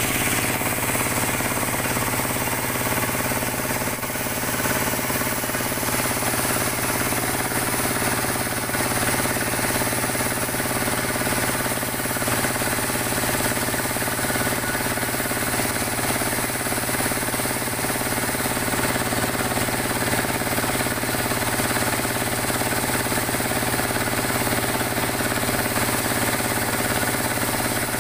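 Sawmill saw machine and its drive running steadily, a continuous mechanical drone with many steady tones, while jabon logs are fed through it for cutting.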